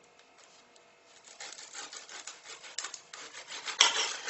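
Kitchen knife cutting through an onion, a series of rasping strokes that start after a brief pause, with the loudest stroke near the end.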